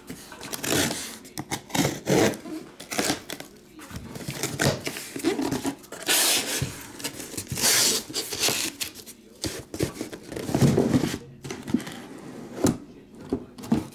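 A cardboard shipping case being handled and opened by hand: irregular cardboard scraping, rustling and knocks, with two longer ripping noises between about six and eight seconds in.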